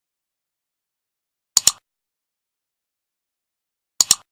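Computer mouse click sound effect, played twice, each time a quick pair of sharp clicks with dead silence in between.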